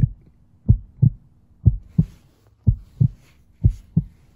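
Heartbeat sound effect: steady pairs of low thumps, about one lub-dub a second.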